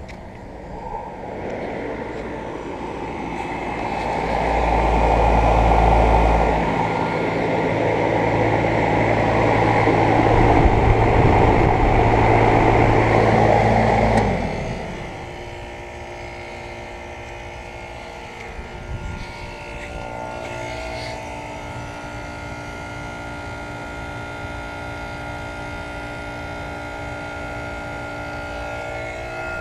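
American Standard central air conditioner condenser running. For the first half a loud fan-like noise with a low hum swells up and then cuts off suddenly about halfway, leaving a quieter steady hum with a few steady tones.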